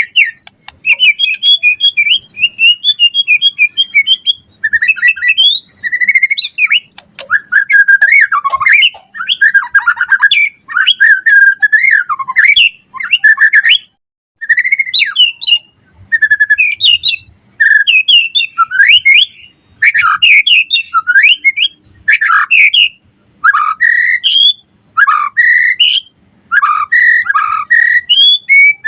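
White-rumped shama (murai batu) singing continuously: a fast run of varied, loud whistled phrases with rising and falling notes, separated by short pauses.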